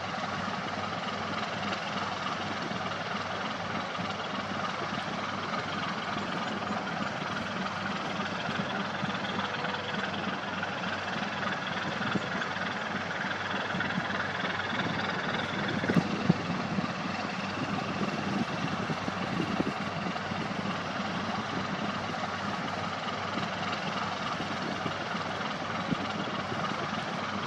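Inland cargo barge's diesel engine running steadily, with a steady drone that swells a little through the middle. A few short knocks come about halfway through.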